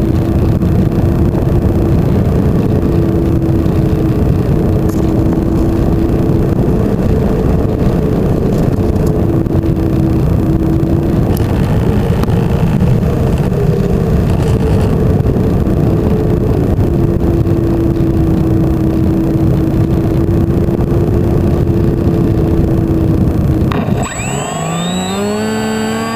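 Electric motor and propeller of an FPV flying wing running in flight, with a steady whine under heavy rushing airflow noise. Near the end the rushing noise suddenly drops and the motor's whine rises in pitch.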